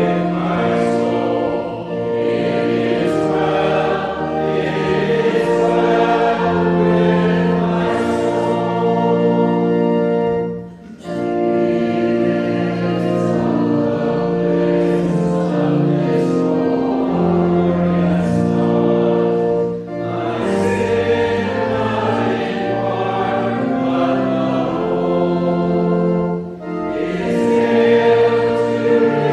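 A congregation singing a hymn with accompaniment, in slow, held phrases with brief breaks between lines, the longest about eleven seconds in.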